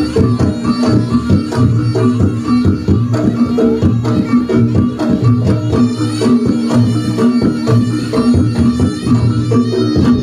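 Reog Ponorogo gamelan ensemble playing: quick drum strokes over steady ringing gong-chime tones.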